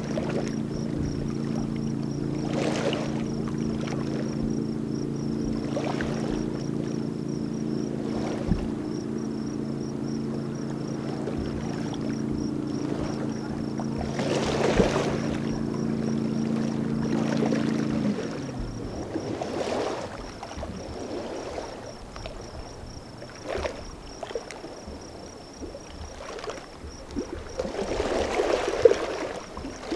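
A distant motorboat engine runs at a steady pitch, then winds down and fades about two-thirds of the way through. Small splashes of water come every few seconds.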